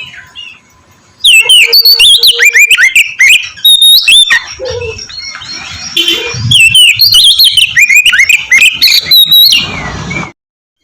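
Oriental magpie-robin (kacer) singing loudly: a fast, varied run of sharp whistled notes sliding up and down. It starts about a second in after a brief hush and cuts off suddenly near the end.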